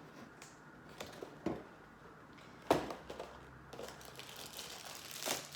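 Cardboard and plastic packaging from a LEGO advent calendar compartment being handled: scattered crinkles and a few sharp clicks, the loudest a little before the middle.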